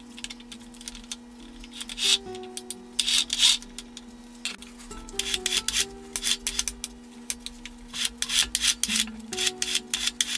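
Saw chain scraping and rattling on an electric chainsaw's guide bar as it is handled while the chain tension is set. It comes in repeated scratchy bursts, loudest from about two to four seconds in and again from five to nine seconds in. Quiet background music plays underneath.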